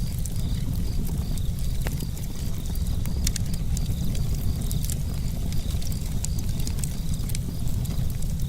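Campfire burning, with scattered sharp crackles and pops over a steady low rumble.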